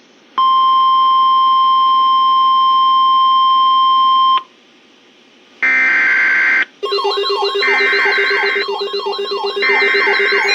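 Emergency weather alert signals: a steady high-pitched alarm tone held for about four seconds, typical of Weatheradio Canada's warning alarm tone. After a short gap come three screechy bursts of digital data tones, each about a second long and a second apart, typical of a SAME alert header, with a wailing, siren-like sweeping tone joining under them about seven seconds in.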